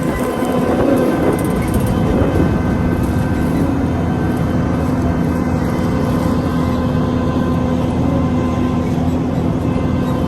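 Combine harvester running steadily under load, a constant machine hum with a steady whine over it.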